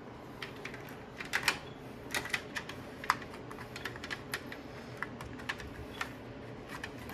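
Irregular light clicks and rattles of battery leads and their connectors being handled and pushed onto the terminals of 12-volt AGM batteries in a metal UPS battery tray.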